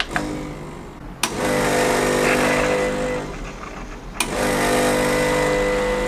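Espresso machine's pump humming steadily while a ristretto shot is pulled on manual flow, with two brief clicks about a second in and again about four seconds in.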